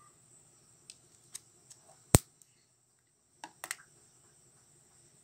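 A few sharp clicks and taps from handling small plastic things, the loudest a single sharp click about two seconds in, over a steady high trill of crickets. All sound cuts out for about a second after the loud click.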